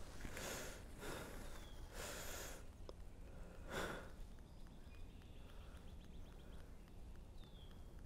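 A person breathing heavily close to the microphone: three deep breaths, each about half a second long and roughly a second and a half apart.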